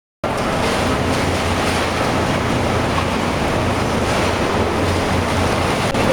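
Construction and demolition debris recycling machinery running: a steady, loud mix of rushing noise and a low hum that cuts in abruptly just after the start, following a moment of silence.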